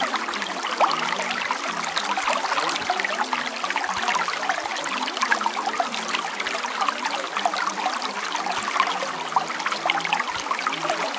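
Steady running water, a continuous trickling stream with many small splashes throughout.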